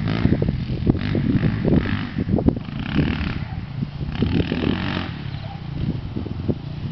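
Dirt bike engine running as the bike is ridden over a rough dirt motocross track, its loudness wavering as it goes.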